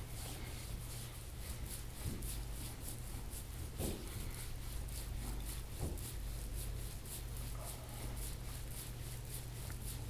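Quiet, rhythmic rubbing strokes on the skin of a person's back, about three to four a second, over a steady low hum.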